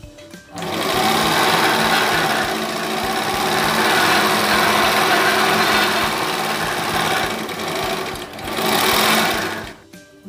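Overlock sewing machine (serger) running at speed, stitching a seam in stretchy spandex jersey. It starts about half a second in, eases off briefly near the eight-second mark, picks up again and stops near the end.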